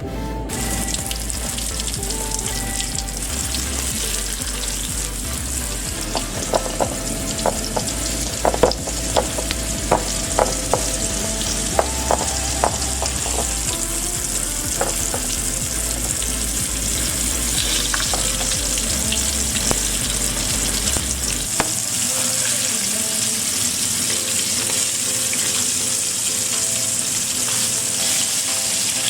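Fish frying in hot oil, sizzling steadily, with a run of sharp clicks between about six and thirteen seconds in.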